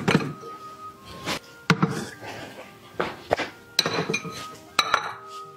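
White porcelain bowls set down one after another in a bamboo steamer, a series of sharp clinks and knocks as the bowls touch each other, each with a short ring.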